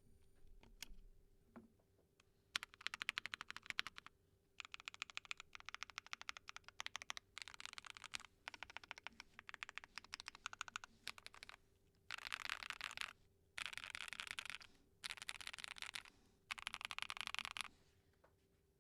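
Keystrokes on a Keychron Q12 mechanical keyboard fitted with SOTC linear switches, a POM plate, PE and Poron foams and doubleshot ABS Cherry-profile keycaps. The typing comes in bursts of a few seconds with short pauses between them, and the last three bursts are a faster, denser clatter.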